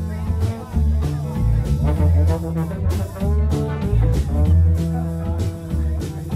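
Background music led by guitar, with a prominent bass line.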